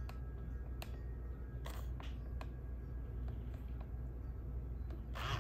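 Faint scattered clicks from the Mattel D-Rex robotic dinosaur's head mechanism as it moves, over a steady low hum, with a short rustle of handling near the end.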